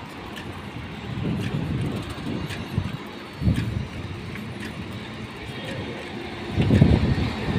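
Road and traffic noise heard from a moving vehicle on a city road: a steady low rumble that swells several times, loudest near the end.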